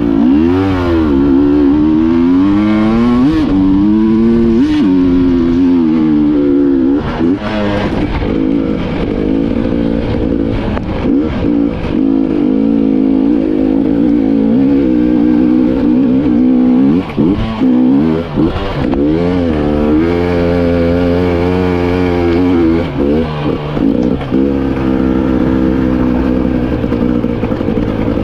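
A 300 cc two-stroke enduro motorcycle engine being ridden hard, its pitch rising and falling with the throttle. It backs off briefly about 7 seconds in and again about 17 seconds in, with some clattering along the way.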